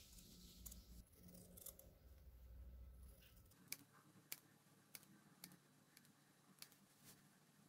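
Faint snips of orange-handled fabric shears trimming gown lining. A run of short, sharp clicks comes in the second half, about one or two a second.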